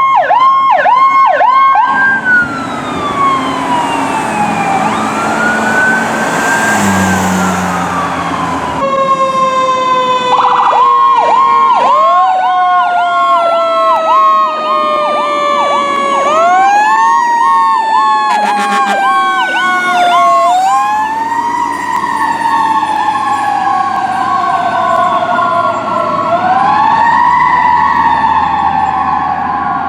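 Emergency vehicle sirens sounding the Powercall tone: a slow falling sweep followed by a quick rise, repeated. Two sirens overlap at times, one with a fast pulsing tone, and the sound changes abruptly about nine seconds in.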